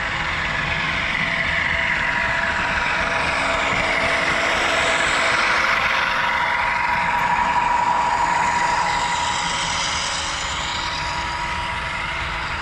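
HO scale BNSF diesel locomotive lashup with LokSound decoders running along the track: a steady diesel engine sound from the models' speakers over a hissing rumble. It grows louder to about the middle, then eases off, as the train passes.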